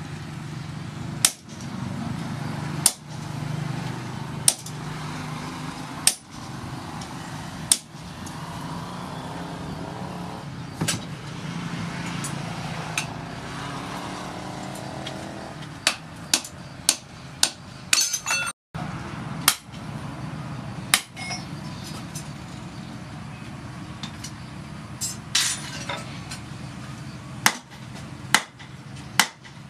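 Hand hammer blows on red-hot steel rebar on an anvil, sharp metallic clinks, spaced about one every second and a half at first and coming in quicker runs later. A steady low hum runs underneath.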